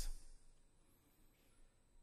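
A man's amplified voice trailing off at the end of a word within the first half-second, then near silence: faint room tone with a thin, steady high hum.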